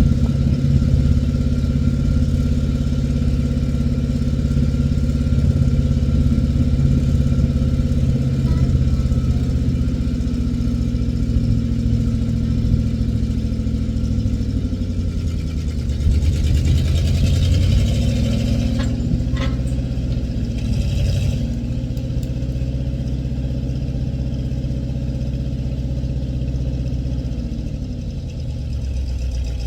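Old International backhoe's engine running steadily, its pitch sagging and recovering twice as the hydraulics take load. A hiss rises midway with two short knocks.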